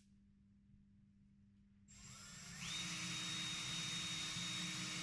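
Driver drill with a pilot drill bit starting up about two seconds in, its motor whine rising quickly and then holding steady at high speed.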